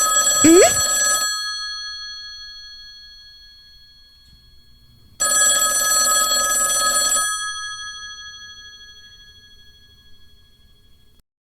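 Alarm clock bell ringing in two bursts about five seconds apart, each ringing out slowly after it stops. A short sound rising sharply in pitch is the loudest moment, in the first burst.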